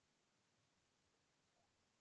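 Near silence: the sound track is essentially muted, with no audible sound.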